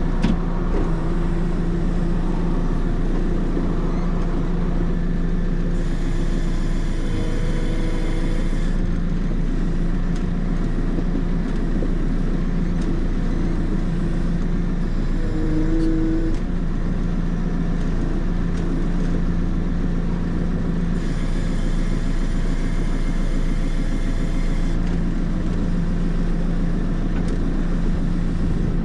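The diesel engine of a JCB 3CX backhoe loader runs steadily under way, with an even hum. A hiss rises above it twice, for a few seconds each time.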